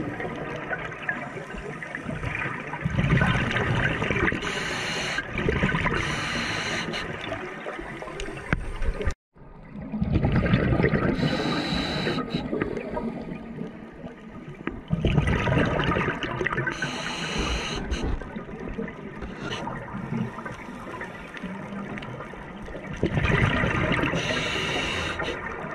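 Scuba divers breathing through their regulators underwater: the hiss of each breath and the rush and gurgle of exhaled bubbles, swelling every few seconds. The sound cuts out for a moment about nine seconds in.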